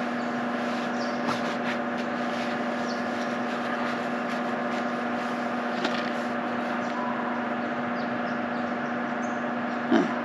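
Water pumps at riverside homesteads running steadily: a constant, even-pitched motor hum.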